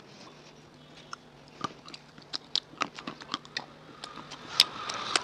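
Close-miked chewing of something hard and brittle in the mouth, a series of sharp crunches that begins about a second in and grows denser and louder near the end.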